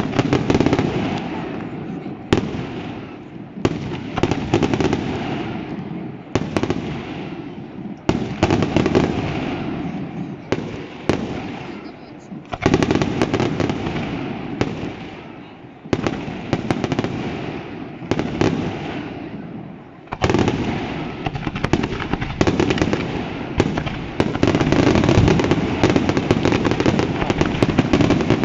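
Aerial fireworks: a string of loud bangs, each followed by crackling that dies away over a second or two, building into a dense, unbroken barrage over the last few seconds.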